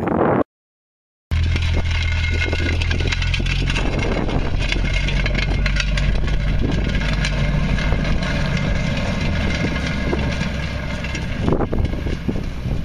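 A car engine running with a steady low drone, starting abruptly about a second in after a moment of silence, with crackling and rattling over it.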